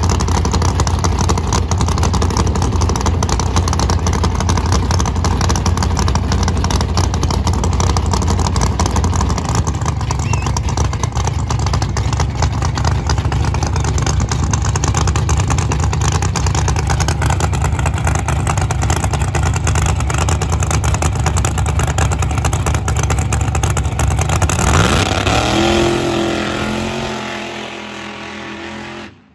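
Drag car's engine running loud and steady at the starting line, then revving up hard about 25 seconds in as it launches, rising in pitch and fading as the car pulls away down the track. The sound cuts off suddenly near the end.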